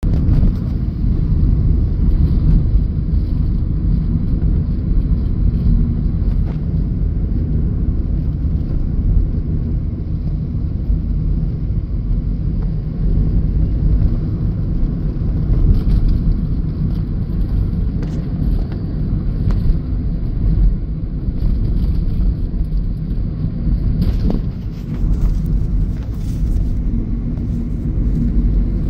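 Car driving, with steady low road and engine rumble heard from inside the cabin.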